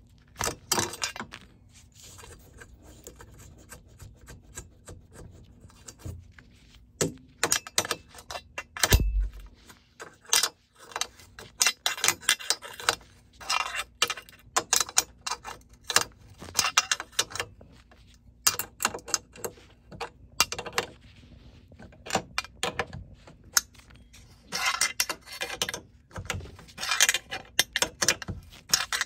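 Steel wrenches on the nuts of a threaded height-adjustment bolt at the foot of a door frame: irregular metal clicks and clinks as the wrenches are fitted, turned and re-seated on the hex nuts, with runs of quick clicking. A dull thump about nine seconds in.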